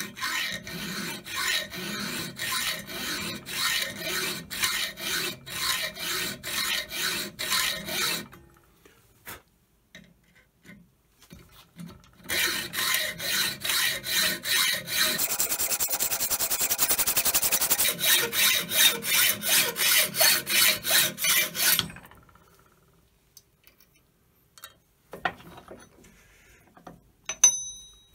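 Hand hacksaw cutting through a small steel key held in a bench vise, with steady back-and-forth strokes about two a second. The sawing pauses for a few seconds, resumes faster, and stops about 22 s in. A short metallic ring comes near the end.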